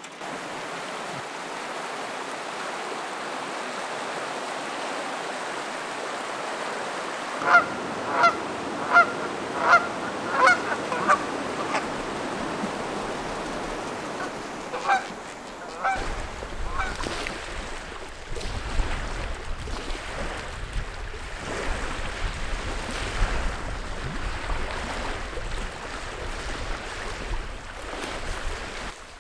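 Canada goose honking in flight: a run of about six loud honks a little under a second apart, then two more a few seconds later, over a steady rushing hiss. In the second half, wind rumbles on the microphone.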